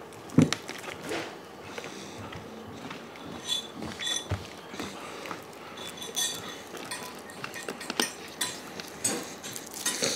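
Dishes and eating utensils clinking and knocking at a meal table: scattered light clicks and short clinks, with one sharper knock about half a second in.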